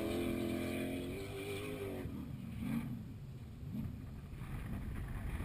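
Off-road race vehicle's engine running at a steady, slightly rising pitch, then fading away about two seconds in and leaving a low rumble.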